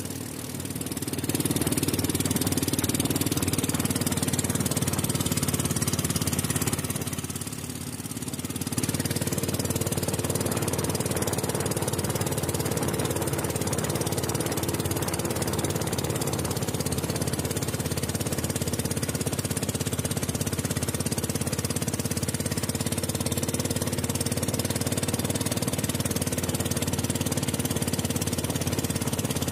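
Engine of a small motorised river boat running steadily at speed, with water rushing past the hull. The sound dips briefly at the start and again about seven to eight seconds in.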